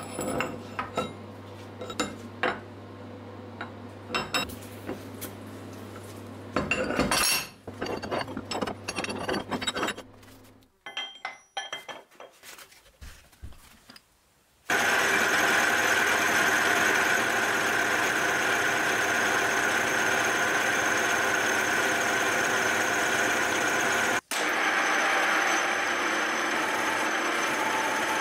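Metal parts clinking and knocking as a workpiece is handled and clamped in a milling vise. About halfway through, a milling machine spindle starts and runs steadily as its end mill cuts into a metal block; this is the loudest sound, with one brief break near the end.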